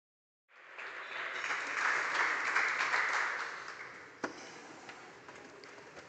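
Audience applauding, swelling up and then dying away, with a single sharp knock about four seconds in.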